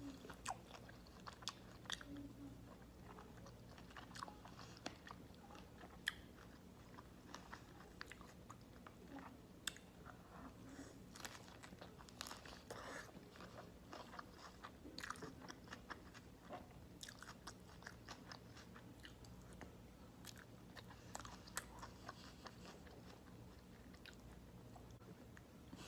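Close-miked mouth sounds of someone chewing and biting a beef burger wrapped in crisp cabbage leaves, with irregular wet crunches and clicks. A faint low hum runs steadily underneath.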